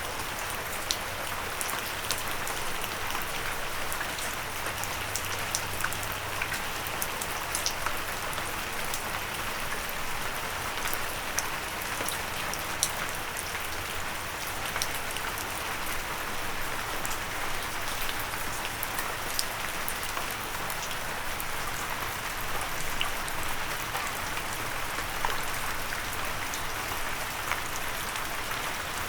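Steady rain falling, with many individual drops ticking sharply against a windowsill.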